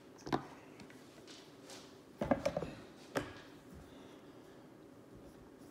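A few light knocks and clatters of things being handled on a kitchen counter: one short knock near the start, a quick run of knocks about two seconds in, and a single sharp knock a second later.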